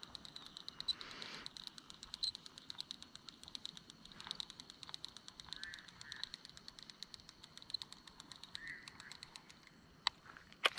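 Faint evening chorus of calling insects: a rapid, steady, even pulsing over a high thin tone, with a few short calls from other animals mixed in. Two sharp clicks sound near the end.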